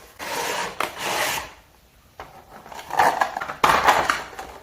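Hard plastic toy pieces, the Ultraman Z medals and their holder, being handled: rubbing, scraping and clacking in two stretches with a short quiet gap between.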